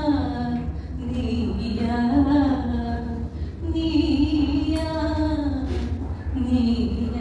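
A woman singing a Tamil song solo into a microphone, amplified through the hall's loudspeakers, holding long wavering notes over a steady low hum.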